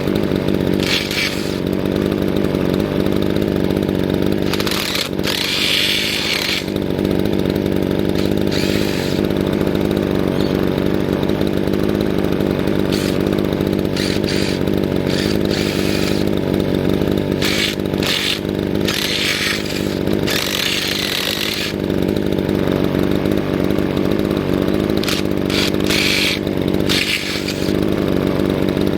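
Petrol chainsaw engine running steadily at idle, with several short bursts of hiss over it.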